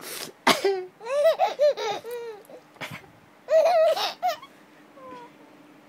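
Baby laughing in bouts of high, squealing giggles, with a first run of laughs over the first two seconds and a second burst about three and a half seconds in, then a brief faint sound near the end.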